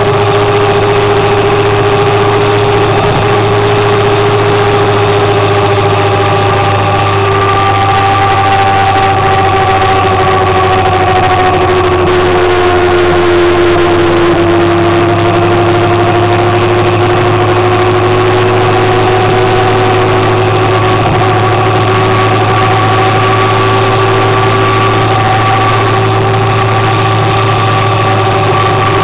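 Motor scooter engine running steadily at cruising speed. Its note dips a little about halfway through and then climbs back, over a constant low drone.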